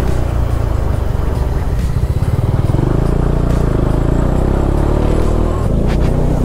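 Motorcycle engine running steadily while riding at low city speed, heard from the rider's own bike; near the end the engine note starts to rise as it pulls harder.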